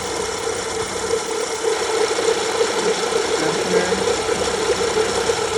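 BMW N55 3-litre turbocharged engine running, with a steady grinding from its worn drive-belt tensioner pulley, which is shaking badly. The sound is a sign that the tensioner is worn out and needs replacing.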